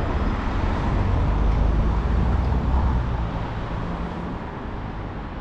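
Town-centre road traffic: a vehicle passing close by, its low engine rumble swelling and then fading.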